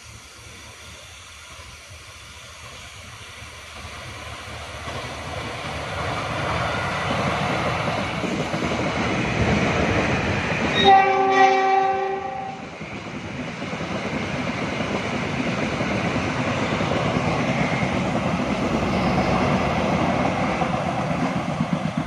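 Passenger train approaching and passing, growing steadily louder. Its horn sounds briefly about halfway through, then the coaches rumble past.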